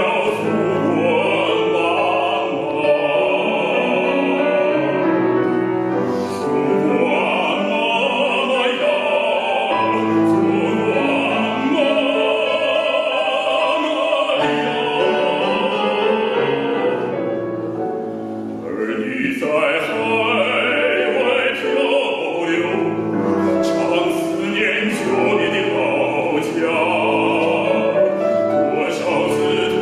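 A bass singing an operatic piece in full classical voice, with grand piano accompaniment. The voice drops out briefly for a breath between phrases a little past halfway, then comes back in.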